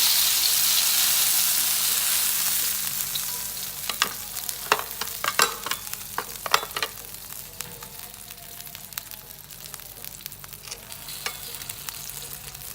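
Blended spice paste of chillies, shallots and garlic hitting hot oil and sizzling loudly, the sizzle slowly dying down as it sautés. Sharp clicks and scrapes of stirring in the pan come through the middle.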